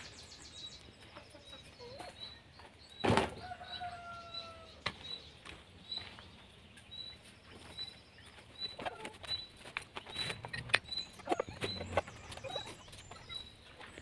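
Hollow concrete blocks being handled on dirt ground: one heavy knock about three seconds in, then a run of knocks and scrapes in the second half. Chickens call, and a short high chirp repeats about twice a second in the background.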